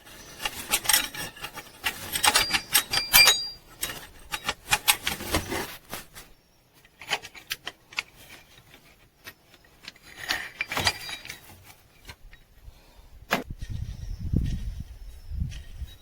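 Metal hand tools and parts clicking and clinking in quick irregular taps for the first several seconds, then a few more clinks, a single sharp knock and a low rumbling handling noise near the end, as the belt tensioner pulley is being taken off to replace its worn bearing.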